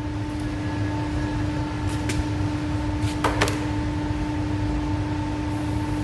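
A steady mechanical hum from workshop equipment, a held tone over a low drone, with a few light metallic clicks about two and three seconds in.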